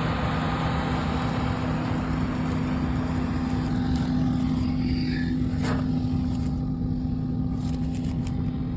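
An engine running steadily at constant speed, a low even hum with a steady drone in it.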